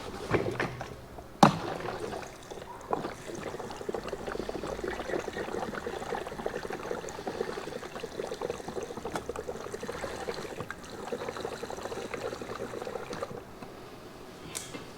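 Fresh gasoline being poured into a go-kart's fuel tank, a steady trickling pour for about ten seconds that tails off near the end, with a sharp knock about a second and a half in.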